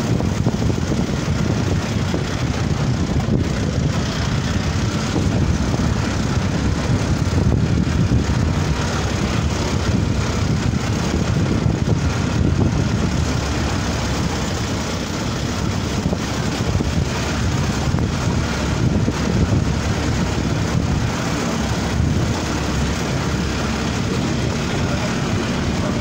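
Steady, rough, low rumbling noise of riding in a moving vehicle, with wind buffeting the microphone.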